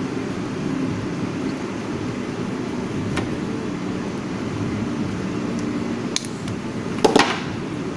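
A steady low hum, like an electric fan or air conditioner running, with a few light clicks of handling and a sharper snap about seven seconds in.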